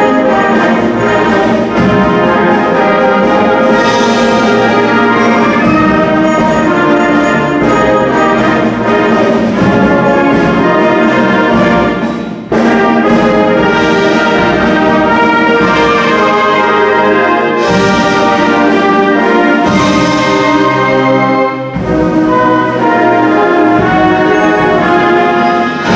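Concert band of woodwinds and brass, with saxophones, clarinets, trombones and trumpets, playing a piece in sustained, full chords. The music breaks off for a moment about twelve seconds in, then the whole band comes back in together.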